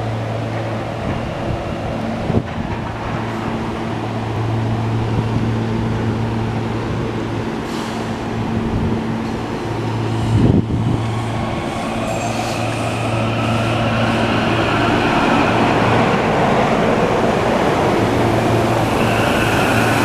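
SEPTA Silverliner V electric multiple-unit train pulling out of the station: a steady electrical hum while it starts, two sharp knocks, then a rising whine from the traction drive over a growing rumble of wheels on rail as the cars pass close by.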